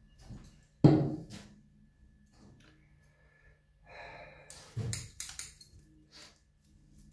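A small object set down on a table top with one sharp knock about a second in. A few seconds later come rustling and a few quick clicks as the orchid and a pair of scissors are handled.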